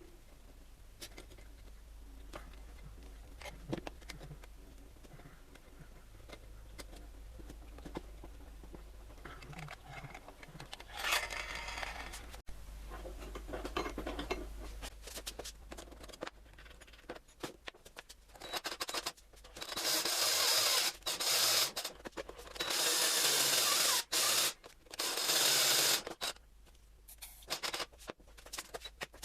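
Rubbing and scraping sounds with scattered small clicks. These lead into several loud rasping bursts of a second or two each in the second half, the loudest part.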